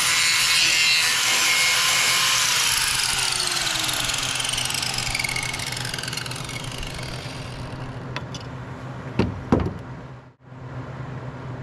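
Angle grinder spinning down after being switched off: its whine falls steadily in pitch and fades over several seconds. A steady engine hum runs underneath, and near the end come a few light clicks and two louder knocks.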